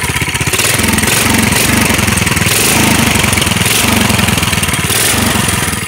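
Yerf-Dog go-kart engine revved hard in several surges, the kart straining to move off. It needs high throttle before the drive belt engages because the belt is too slack after a pulley change and the motor has to be moved back.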